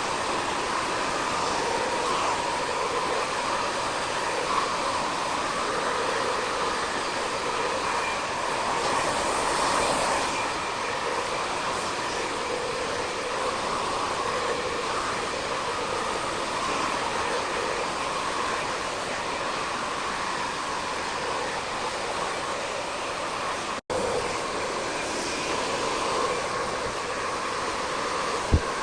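VAGARY 2200 W ionic salon blow dryer with its concentrator nozzle, running steadily with an even rushing airflow and motor hum. It drops out for a split second about four-fifths of the way through, and a sharp click comes near the end.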